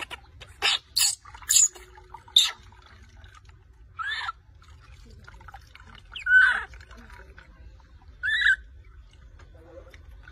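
Baby monkey crying and screaming: four short, shrill squeals in quick succession, then three longer cries about two seconds apart, the middle one the loudest.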